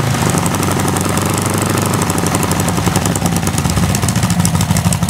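Small carburetted engine on a test stand running loudly with a rapid, even firing beat.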